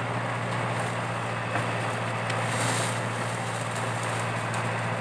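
Komatsu PC80 excavator's diesel engine running steadily, with a brief hiss a little past halfway.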